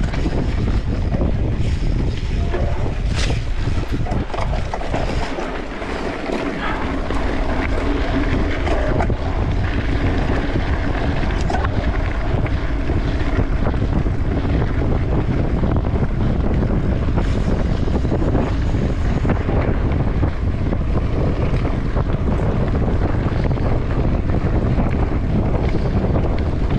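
Steady wind rush on the microphone of a camera riding a mountain bike at race pace, with scattered knocks and rattles from the bike over rough trail. The sound eases off briefly about six seconds in.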